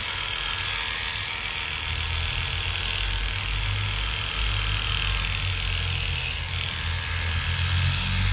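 Electric dog grooming clippers running steadily with a low hum as the blade shaves through a dog's severely matted coat.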